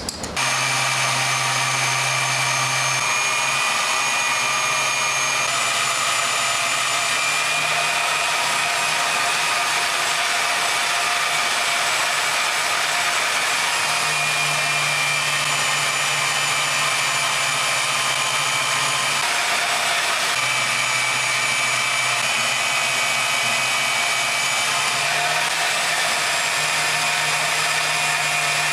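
Benchtop band saw running with its blade cutting a row of closely spaced slots into a block. The low hum of the saw steps up and down several times as the cuts start and stop.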